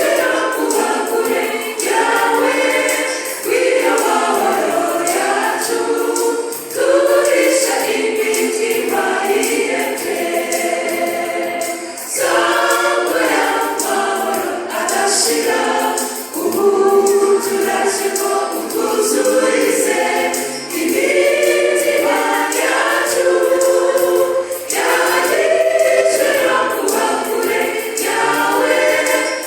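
Church choir singing a gospel song in many voices, phrase after phrase with brief breaks between lines.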